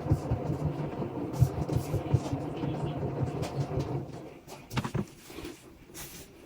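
Haier washing machine running its drum self-cleaning cycle: a steady low mechanical hum with the drum turning, which drops away about four seconds in, leaving a couple of short clicks.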